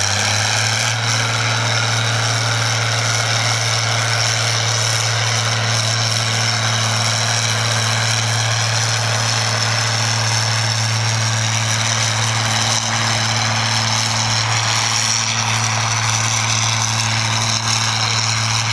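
Vintage Minneapolis-Moline tractor engine running at full throttle under load as it drags a weight-transfer pulling sled, a loud, even drone holding one steady pitch.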